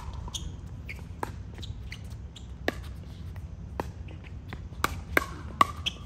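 Pickleball paddles striking the ball and the ball bouncing on the court: a string of sharp pops at irregular intervals, some faint and some close, the loudest three coming near the end.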